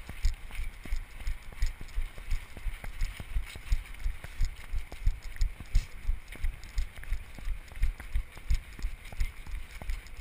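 Running footfalls, a steady rhythm of low thuds about three a second, picked up by a GoPro carried by a runner and jolted with each stride.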